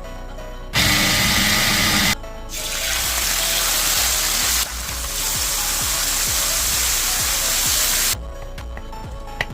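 Background music, with a loud rushing noise about a second in, then a steady hiss lasting about five and a half seconds that cuts off sharply near the end.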